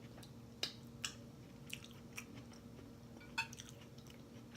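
A person chewing a mouthful of burger close to the microphone, with soft wet mouth clicks and a few sharper smacks about half a second, one second and three and a half seconds in. A faint steady hum runs underneath.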